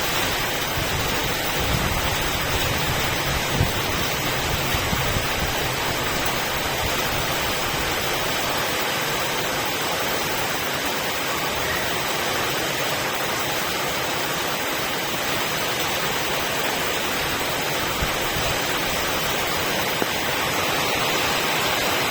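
Steady heavy rain falling, an even hiss, with a low rumble fading out over the first few seconds.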